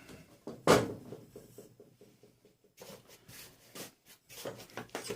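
Parts of a disco light being handled and pulled apart: one sharp knock about a second in, then a quick run of light ticks and scattered clicking and rubbing.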